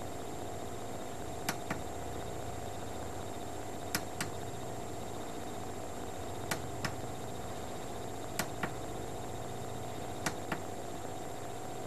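A steady electrical hum with a faint whine, broken every two to three seconds by a pair of sharp clicks a quarter-second apart.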